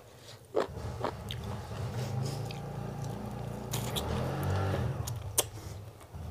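Close-miked chewing of a person eating chicken biryani with the hand, with a few sharp clicks, the loudest about half a second in.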